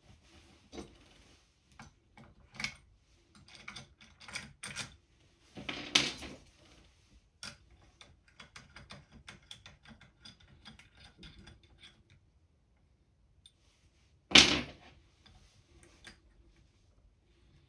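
Hands and a screwdriver working on an Air Arms TX200 air rifle laid upside down in its wooden stock, giving small metal clicks, ticks and scrapes. Two louder knocks come about six seconds in and again later on, the second the loudest.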